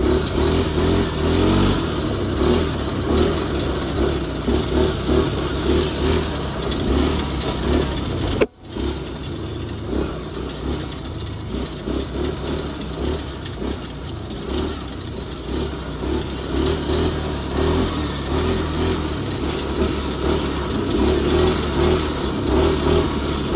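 ATV engine running while it is ridden along a dirt track, heard up close from the rider's seat. The sound drops out for a moment about eight and a half seconds in.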